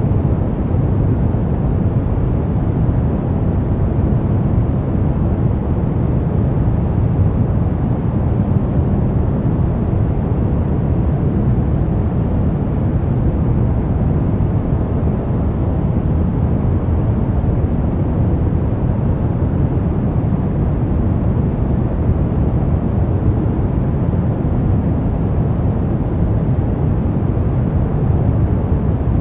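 Steady brown noise: a constant deep rumbling hiss, strongest in the low end, with no changes or events.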